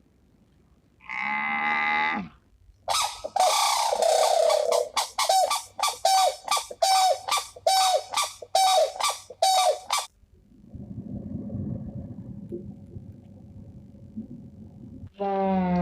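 A run of different animal calls: one drawn-out call about a second in, then a fast string of about a dozen short repeated calls, then a low, noisy rumbling stretch, and another pitched call starting near the end.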